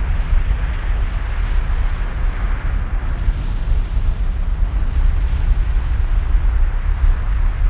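Kilauea's eruption in Halemaumau Crater: a steady low rumble and hiss from the lava fountain, with many small irregular pops.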